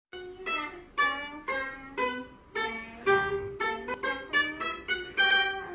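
Round-bodied Chinese plucked lute playing a melody of single plucked notes, about two to three a second, each ringing and fading.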